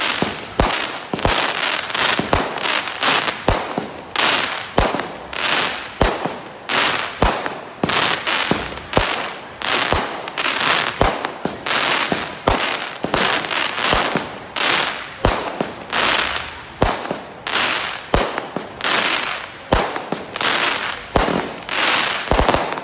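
Aerial fireworks barrage: shells bursting in rapid succession, about two sharp bangs a second, each followed by a brief crackle as the white glitter stars break.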